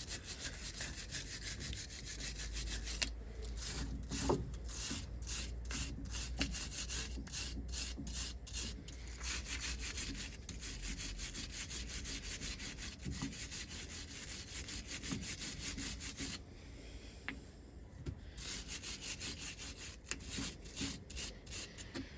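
A Scotch-Brite abrasive pad being scrubbed back and forth over the metal of a car's front brake parts, gently, to clean them before new pads go in. The quick, even strokes pause briefly about three-quarters of the way through.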